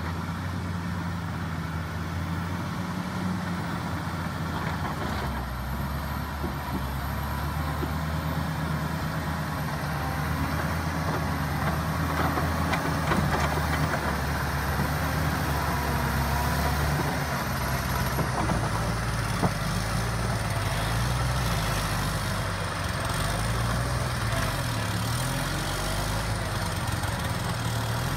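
John Deere 670CH motor grader's diesel engine running as the machine works the ground, growing louder as it comes closer. In the second half its pitch rises and dips as the engine takes on and sheds load.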